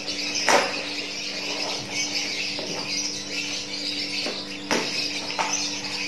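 The cardboard and packing tape of a seedling parcel being cut open and handled: rustling with sharp crackles, the loudest about half a second in and a few more near five seconds. A steady low hum runs underneath.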